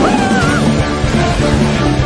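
Rock music with sustained low notes and a steady beat.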